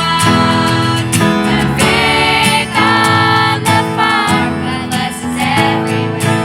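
Music: a song with a strummed acoustic guitar and a singing voice.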